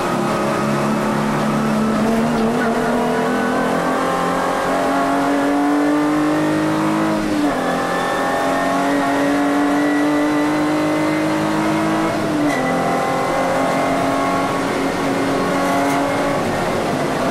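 Volkswagen Vento VR6 race car's 2.8-litre narrow-angle V6 heard from inside the cabin under full acceleration. The engine note climbs steadily and drops sharply twice, about seven and a half and twelve and a half seconds in, as it is shifted up through the gears.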